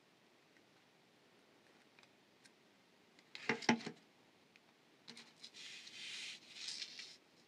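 A few sharp metal clacks about three and a half seconds in as jewelry pliers are set down on the tabletop, then a couple of seconds of light scratching and rustling as jewelry wire is handled and threaded through a beaded pendant.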